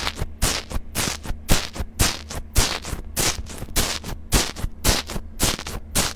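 Slime being squeezed and poked, giving a quick run of sharp clicks and pops, about three or four a second, over a low steady hum.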